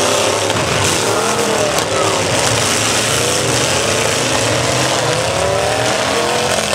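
Demolition-derby pickup truck engines revving hard, their pitch rising and falling over a heavy din, with a couple of sharp knocks in the first two seconds.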